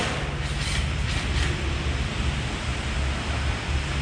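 Steady rushing noise with a low hum underneath, and a few faint knocks in the first second and a half.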